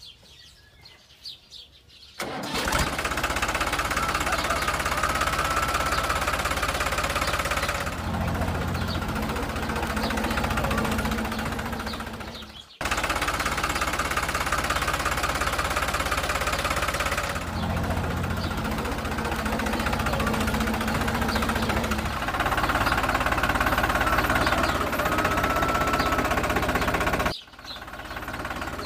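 Tractor engine running with a knocking beat. It starts about two seconds in and is cut off abruptly twice, near the middle and near the end, each time carrying straight on.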